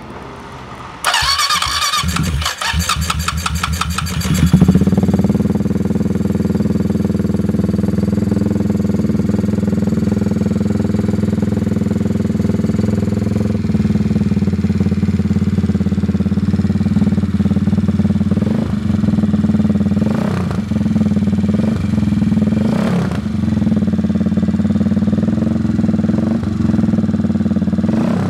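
CCM Spitfire bobber's single-cylinder engine being started: the electric starter cranks for about three seconds before the engine catches with a loud bark. It then settles into a steady idle, with a few brief blips of the throttle.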